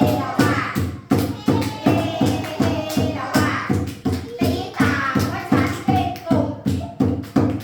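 Children's song about animals: a sung melody over a steady beat of about two to three strokes a second.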